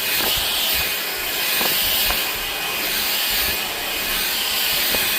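Ultenic U16 Flex cordless stick vacuum cleaner running on its second suction setting, a steady hissing whir that rises and falls slightly as it works over the carpet.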